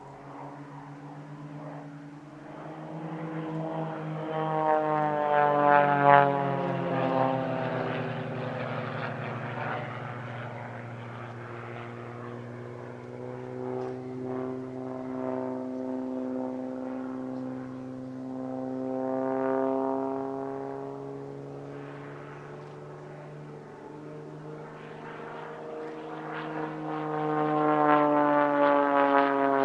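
Propeller-driven aerobatic monoplanes (a CAP 232 and Extra 300L display pair) flying past. The engine and propeller drone swells and falls in pitch as they sweep by, loudest about six seconds in and again near the end.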